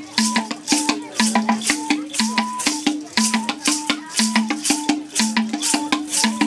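Dance music: a rattle shaken in a steady rhythm over a short, low two-note melodic figure that repeats about once a second.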